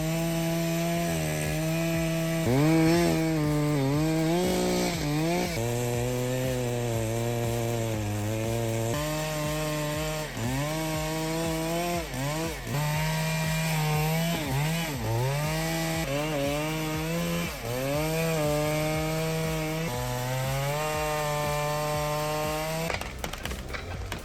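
Chainsaw cutting wood, its engine held near full throttle with the pitch sagging repeatedly as the chain bogs down in the cut and recovering between cuts. It cuts off abruptly near the end.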